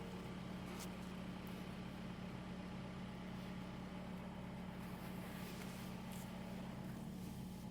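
A faint engine idling steadily, a low even hum, with a couple of light ticks.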